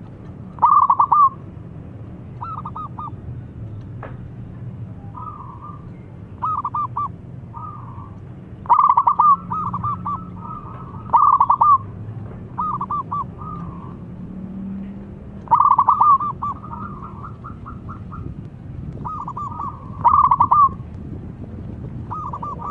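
Zebra dove (perkutut) cooing: short phrases of several quick, staccato notes, repeated every two to three seconds. Some phrases are loud and some softer.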